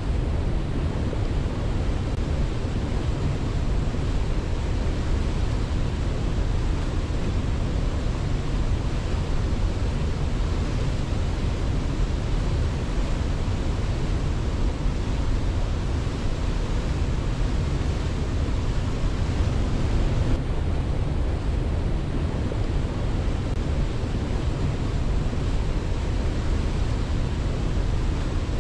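Waterfall: a steady, deep rush of falling water that holds even, without swells or breaks.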